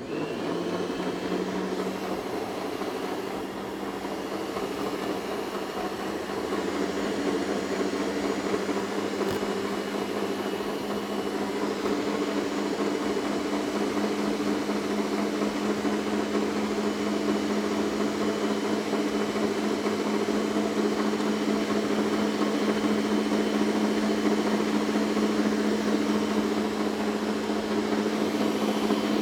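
Electric stand mixer (dough-kneading machine) switched on and running, kneading flour, sugar and salt into a dough as water is added. It gives a steady motor hum at one constant pitch.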